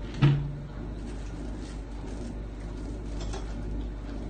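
Wooden kitchen cabinet door knocking shut once, just after the start, with a short low ring, as a cat paws it open and lets it go. After that only a few faint light taps.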